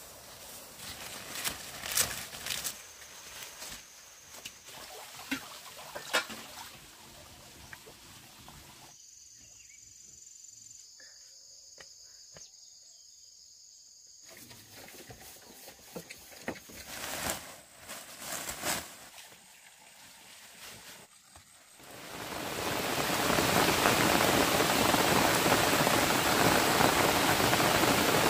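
Scattered sharp knocks and clicks, then from about 22 seconds in a loud, steady rush of water that holds to the end.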